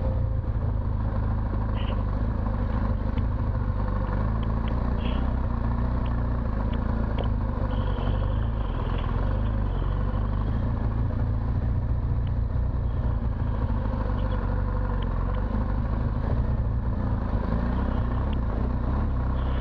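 BMW R1200 GS Adventure's boxer-twin engine running steadily while riding along a dirt track, with wind and tyre noise and a few short high clicks.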